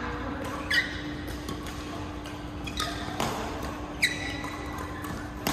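Badminton rackets striking a shuttlecock in a rally: a series of sharp pings off the strings, each ringing briefly on a high tone, the loudest about a second in and about four seconds in. A steady low hum runs beneath.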